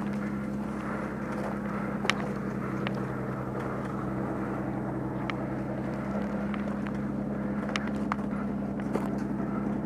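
An armoured vehicle's engine running at a steady idle, with a few sharp clicks scattered through.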